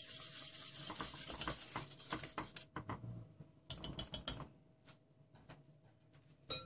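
A wire whisk stirring runny chocolate pudding in a stainless steel pot, its wires clicking rapidly against the metal for about the first two and a half seconds. About four seconds in, a few sharp metal clicks as the whisk is lifted out of the pot.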